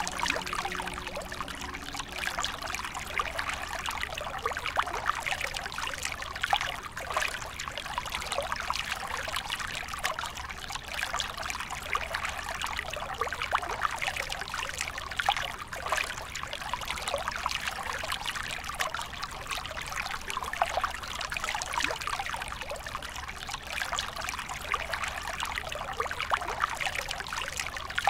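Shallow, fast river running over rocks: a steady babble of splashing water.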